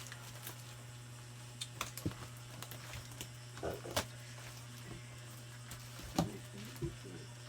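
Scattered light clicks and knocks of a cardboard package being handled and opened, over a steady low hum.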